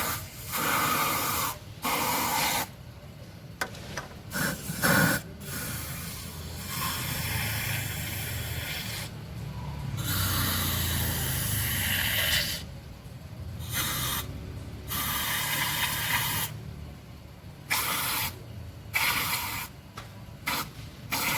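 Aerosol can of carbon-cleaning foam spraying in repeated hissing bursts, each lasting a second or two, starting and stopping as the foam is sprayed into the engine's spark plug holes.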